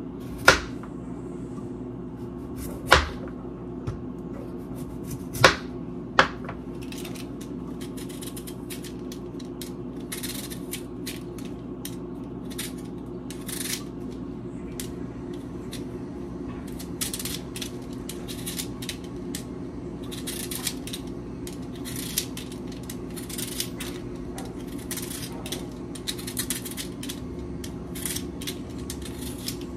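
Vegetable peeler scraping carrots in quick, short strokes, coming in runs, over a steady low hum. A few sharp knocks sound in the first several seconds, as things are set down on the counter.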